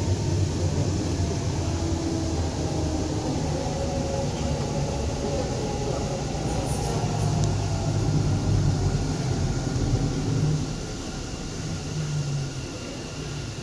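Metro train running on its track, heard from inside the carriage: a steady low rumble with a faint whine from the drive, getting quieter about eleven seconds in.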